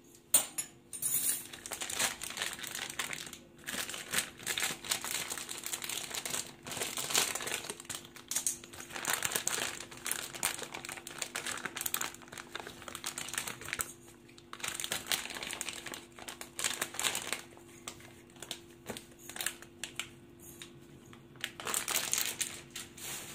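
Clear plastic bag crinkling and rustling in irregular bursts as it is handled and kinako-dusted mochi are tipped out of it into a ceramic bowl.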